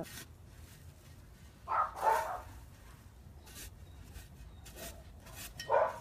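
A dog barks, once about two seconds in and again near the end, over faint scrapes of a garden shovel in loose soil.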